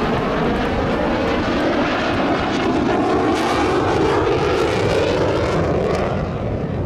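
F/A-18 Hornet's twin jet engines at high power as the fighter pulls up into a vertical climb: a loud, steady rush of jet noise that eases off near the end.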